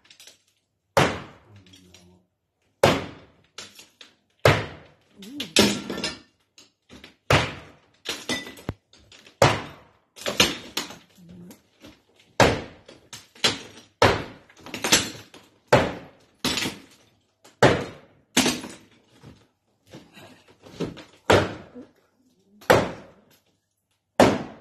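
Hammer blows smashing a wall-mounted artwork, one strike after another at roughly one a second, each a sharp crack as pieces break off.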